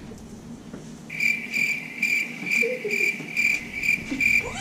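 Cricket chirping, starting about a second in: a steady high trill pulsing evenly, about two to three pulses a second.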